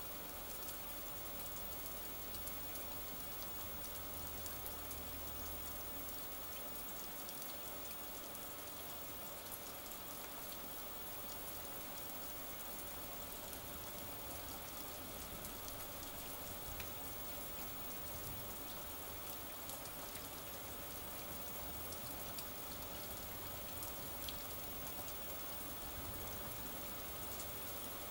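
Steady rain falling during a thunderstorm, an even hiss with scattered close raindrops ticking.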